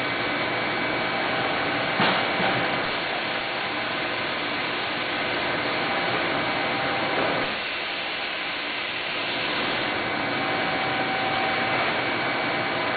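Steady hiss and hum of running equipment, with a single knock about two seconds in.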